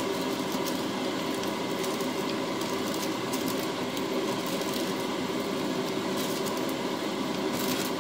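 Steady machine hum with a hiss, carrying a few faint level tones, with a few faint light ticks.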